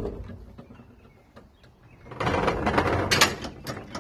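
Wooden fence gate and its latch rattling, scraping and clicking, a burst of noise from about two seconds in to about three and a half, with sharp clacks near its end and a few lighter clicks after.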